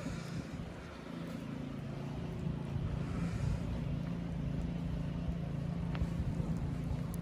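An engine running steadily with a low hum, which stops abruptly at the end.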